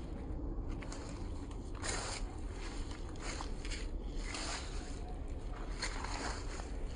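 Vinyl decals being rubbed and squeegeed onto ATV plastic: a run of short scraping strokes, each about half a second, over a steady low rumble.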